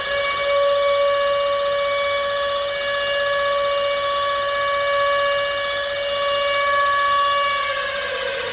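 Civil defense warning siren sounding one long wail: its pitch finishes climbing at the start, holds steady, and begins winding down near the end.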